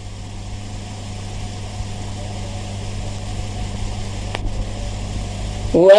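Steady background hiss with a low hum from the recording, rising gradually in level, with a single faint click about four and a half seconds in. A man's voice chanting Quran recitation comes in just before the end.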